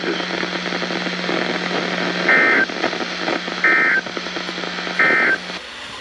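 Weather radio receiver sounding three short, identical warbling data bursts about 1.4 s apart: the EAS/SAME end-of-message code sent after a warning, heard over radio static and a steady hum. The static and hum cut off near the end as the broadcast drops the message.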